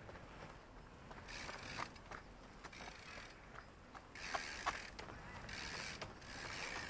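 BMX freewheel hub ratcheting as the bike coasts: spells of fast clicking, short at first, then longer and more frequent from about four seconds in.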